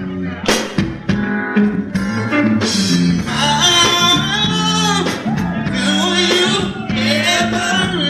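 A live R&B band plays with bass and drums, and a vocalist comes in about two seconds in, singing wavering, ornamented lines over the groove.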